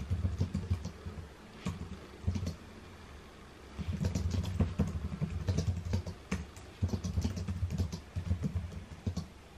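Typing on a computer keyboard in bursts of quick keystrokes, with short pauses between the bursts.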